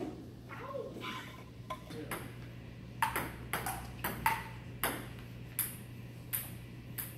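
Table tennis ball clicking sharply against paddles and the table, a string of single ticks every half second to a second, starting about three seconds in.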